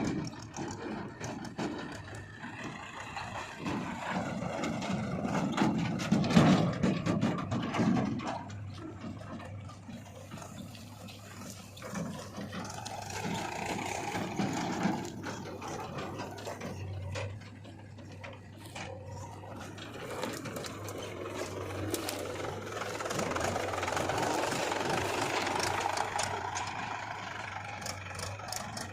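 JCB 3DX backhoe loader's diesel engine working under load, revving up and easing off in turn, loudest about six seconds in, with scattered clatter.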